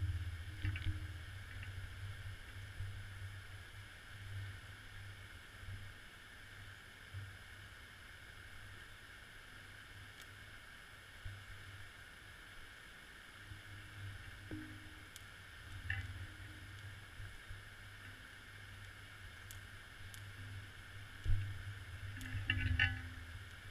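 Muffled low rumble of water heard through a GoPro's waterproof housing on the seabed, with a faint steady hiss and a few soft knocks and clicks near the end.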